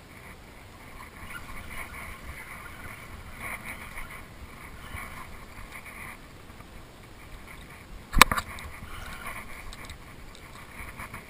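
Water lapping and sloshing against a small boat's hull, with wind on the microphone, and one sharp knock a little past the middle.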